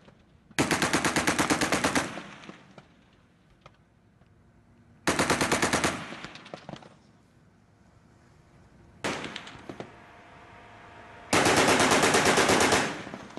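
Mk 38 25 mm chain gun (M242 Bushmaster) firing four bursts of rapid shots, each over in a second or so and followed by a fading echo. The third burst is short and weaker.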